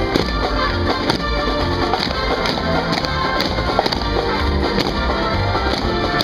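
Parade music with a crisp, steady marching beat, playing loud.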